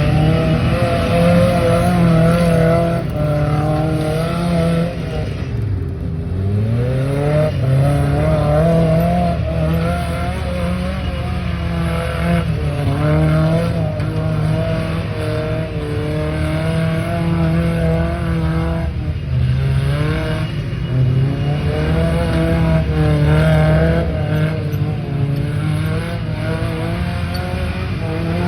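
Off-road Toyota's engine running hard under load, held at high revs with the pitch wavering. The revs drop and climb back about six seconds in, and sag again later.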